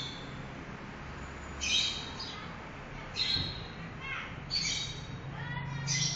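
Bird calls: short, high chirping calls about four times, roughly every second and a half, over a steady low background hum.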